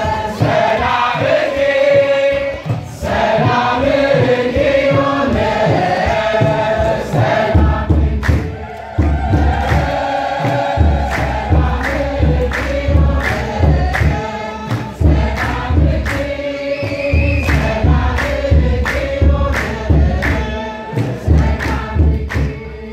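Ethiopian Orthodox church choir singing a hymn (mezmur) in unison, with steady hand clapping to the beat. A deep low beat joins underneath from about eight seconds in.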